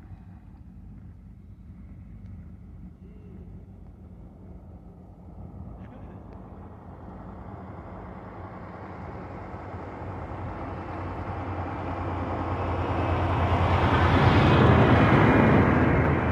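A passing motor: engine noise swells over about ten seconds to a loud peak near the end, then starts to fade, over a steady low engine hum.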